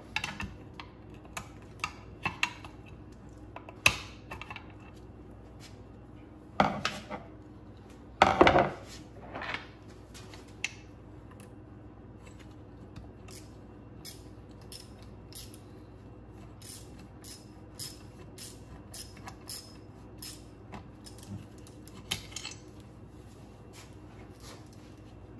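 Hand tools clicking and clinking on metal as a hose clamp is tightened around a new rubber bellows on a Mercruiser Alpha One Gen 1 gimbal housing. A few louder knocks come about a third of the way in, followed by a run of light, regular clicks at about two a second.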